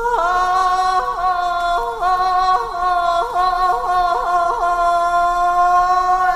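Music from a Thai luk thung recording: a held chord on an organ-like instrument, its lower notes dipping and returning in quick ornaments, fading out near the end.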